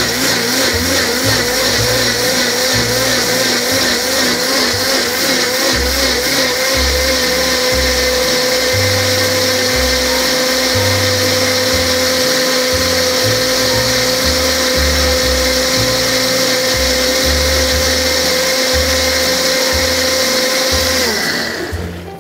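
Countertop blender motor running on high, blending frozen peaches and mango with yogurt and milk. Its pitch wavers for the first several seconds as the blades work through the frozen fruit, then holds steady once the mix turns smooth. Near the end it switches off and winds down.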